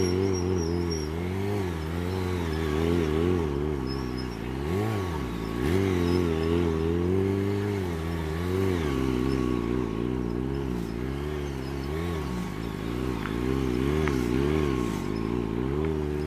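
Sport motorcycle engine running at low revs, its pitch rising and falling about once or twice a second under constant throttle changes during a stunt. The revs dip deeper twice about five seconds in.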